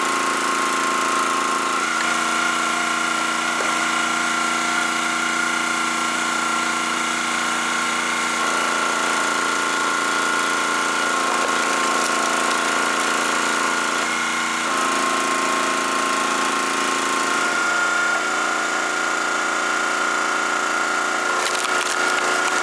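Champion 27-ton log splitter's gas engine running steadily while the splitter is worked. Its lower note drops in and out every few seconds. A few sharp cracks near the end come from wood splitting on the beam.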